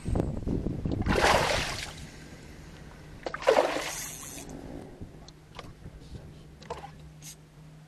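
A paddle dipping and pulling through shallow water beside a small boat: two splashing strokes about two seconds apart, then quieter with a few faint knocks.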